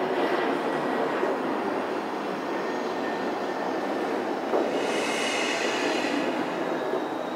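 Metro-North train running on the rails with a steady rumble. A knock comes about four and a half seconds in, followed by a brief high squeal of wheels.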